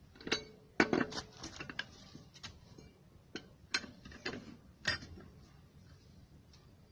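Metal hand tools clinking and clicking: a dozen or so sharp, irregular metallic clicks over about five seconds, then quiet handling.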